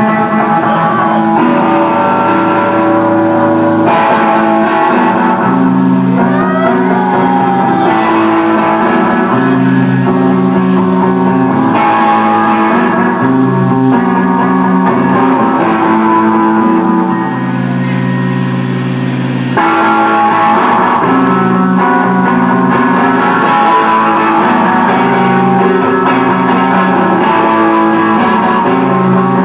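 Heavy rock band playing live: loud distorted electric guitar and bass in long held chords. The upper notes thin out for a couple of seconds just past the middle before the full sound returns.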